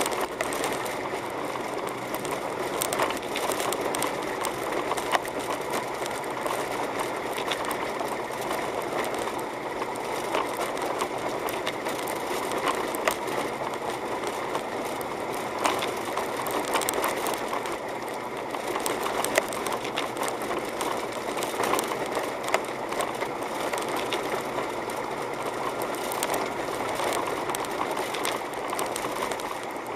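Car interior noise while driving on a snow-covered road: steady tyre and engine noise with a dense run of small clicks and rattles.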